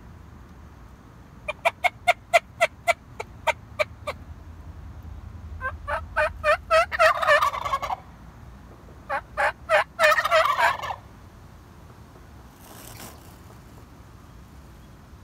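Male wild turkeys gobbling: three gobbles in quick succession, each a fast series of notes lasting about two seconds.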